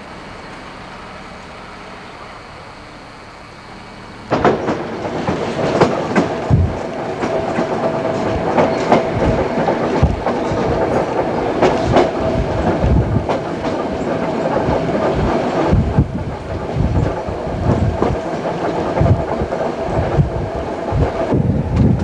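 Budapest HÉV suburban electric train running, heard from on board: wheels clattering over rail joints and points, with a steady whine beneath. About four seconds in, the sound jumps suddenly from a quieter steady background to the loud running noise.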